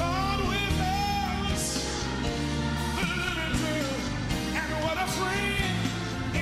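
Live gospel music: a male singer's wordless, sliding vocal runs over a band's steady sustained backing.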